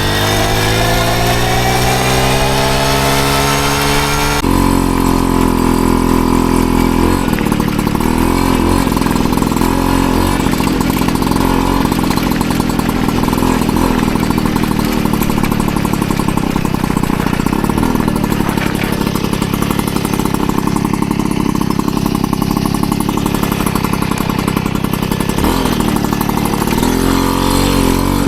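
Piaggio Ciao moped's 50cc two-stroke engine, fitted with an aftermarket Giannelli exhaust, running. The pitch rises steadily for the first four seconds as it revs up, drops suddenly to a steady run, and revs briefly again near the end.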